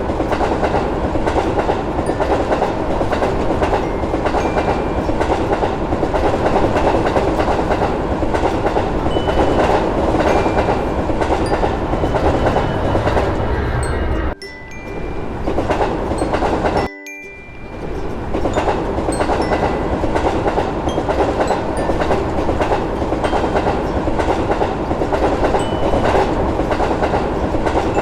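Passenger train running past, its wheels clattering over the rail joints. Partway through the sound drops abruptly, goes silent briefly, then starts again at full strength.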